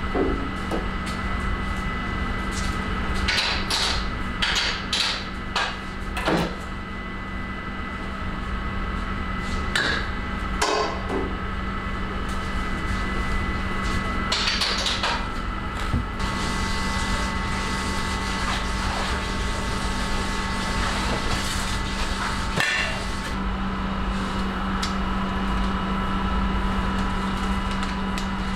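Steady hum of bakery machinery, with several constant tones in it, under sharp knocks and clatters of metal utensils handled on a stainless-steel worktop. The knocks come in a quick run a few seconds in, then only now and then.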